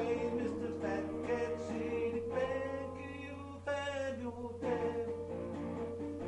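A man singing while strumming an archtop guitar, his voice strongest in the middle, over a steady low hum.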